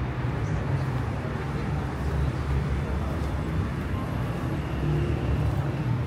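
Steady city-street traffic rumble from a boulevard, a continuous low drone of engines and tyres with no single event standing out.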